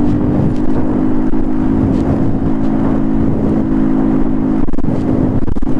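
Motorcycle engine running at a steady cruising speed while riding, held at one even pitch, with wind rumble on the microphone.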